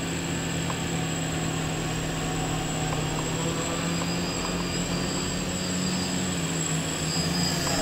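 Homebuilt electric quadcopter's four motors and propellers running in flight: a steady buzzing hum with a thin high whine above it, the pitch shifting slightly about six seconds in.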